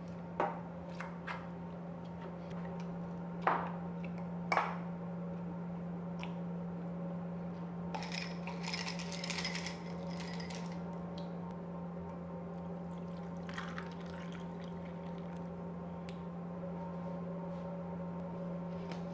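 A stainless muddler knocks a few times against the glass jar as it crushes pineapple chunks. Ice cubes then clatter into the jar for a couple of seconds, followed by a short pour of liquid, over a steady low hum.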